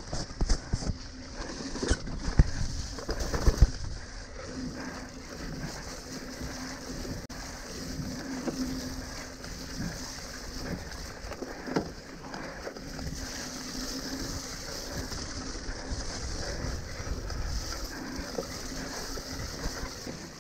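Mountain bike ridden over a wet, muddy dirt trail: tyre and chassis rattle with wind noise on the camera's microphone, and a run of hard knocks in the first few seconds as the bike jolts over bumps, with a single knock later on.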